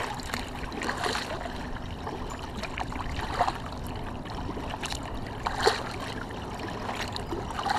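Water lapping and splashing against the hull of a moving kayak, with a few small, sharper splashes now and then.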